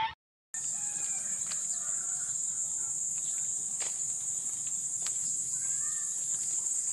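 Steady high-pitched chorus of insects, starting about half a second in, with a few faint ticks and a faint short call near the end.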